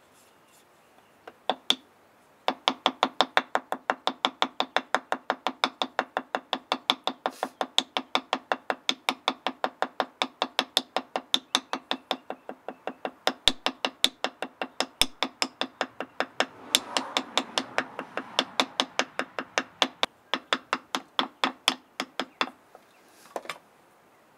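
Wooden mallet tapping steadily on the bark of a green stick, about three to four taps a second, to loosen the bark so it slides off the wood for a bark whistle (Maienpfeife).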